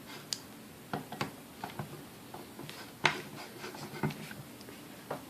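Hands working on a Sunbeam Mixmaster stand mixer being taken apart: a scatter of light clicks and taps as its parts are handled, the sharpest a little after 3 seconds and again about a second later.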